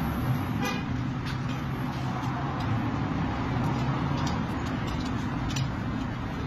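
A vehicle's engine running steadily with a low hum, with a few light clicks over it.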